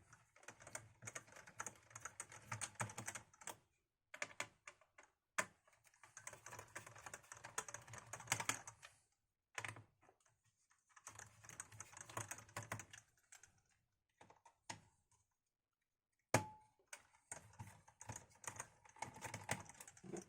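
Screwdriver unscrewing small screws from a laptop's plastic base: faint bursts of rapid clicking with short pauses between them, and one sharp knock about sixteen seconds in.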